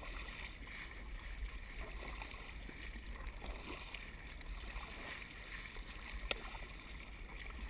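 Water sloshing and lapping around a fishing kayak at sea, over a low steady rumble, with one sharp click about six seconds in.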